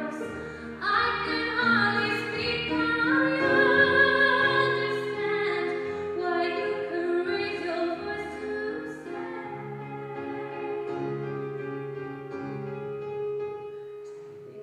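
Mixed choir singing a slow song in sustained chords, with a female lead voice on top. It swells about a second in, is loudest around four seconds, and grows gradually softer toward the end.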